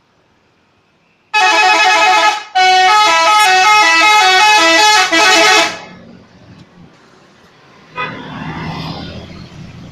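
Bus telolet horn playing a stepped multi-tone melody in three loud blasts over about four seconds. About eight seconds in comes a shorter, noisier rush of sound without a tune.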